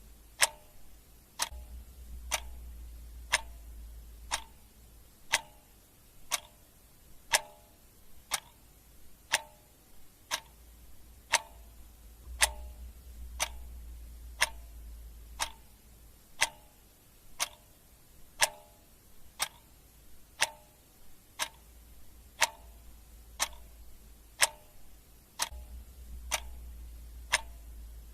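Clock ticking steadily, about one tick a second, with a faint low hum that swells and fades underneath.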